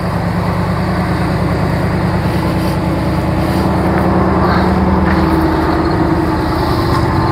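The 1987 Cadillac Allante's 4.1-litre V8 idling steadily just after starting, after sitting unused for a while. It started right up on a fresh tune-up.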